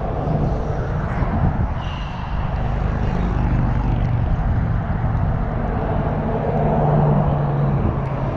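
Strong wind buffeting the camera microphone, a dense low rumble, with a steady low engine drone underneath that grows louder near the end.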